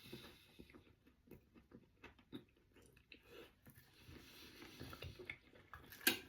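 A person chewing a mouthful of salt and pepper chicken pie, faint wet mouth clicks at an irregular pace, with one sharp, louder click near the end.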